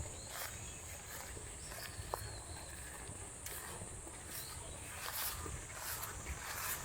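A walker's footsteps ticking on a path under a steady high-pitched buzz of insects, with low wind rumble on the microphone.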